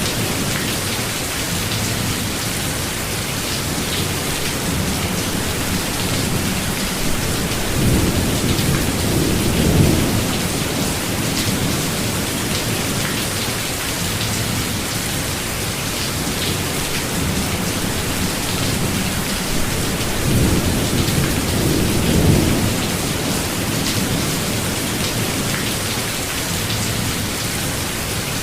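Steady heavy rain falling in a forest, with many small drop ticks, and two low rolls of thunder swelling and fading, about a third of the way in and again a little past two thirds.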